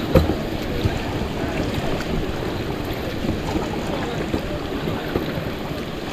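Steady rushing of a river current, with one sharp knock just after the start.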